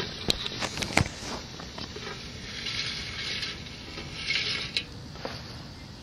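Shoe brushing and rustling through lawn grass close to the microphone, in two short spells, with a couple of sharp clicks in the first second.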